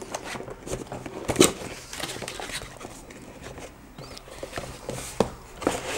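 Cardboard headset box being opened and handled by hand: irregular rustles, scrapes and light clicks of cardboard and packaging, with a couple of sharper knocks, one about a second and a half in and one near the end.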